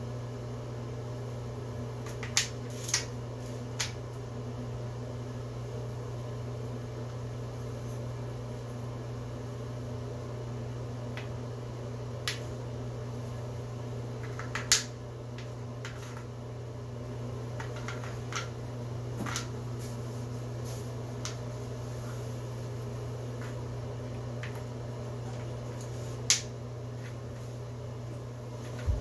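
Letter pieces of a wooden alphabet puzzle being handled and set into the board, giving about a dozen scattered sharp clicks and knocks. The loudest comes about halfway through and another a few seconds before the end, over a steady low background hum.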